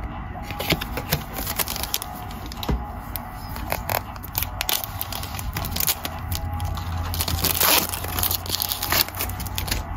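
Trading cards and their plastic pack wrapper being handled: a run of crinkles, crackles and small clicks as the cards are shuffled through, with a louder crinkle about three-quarters of the way through.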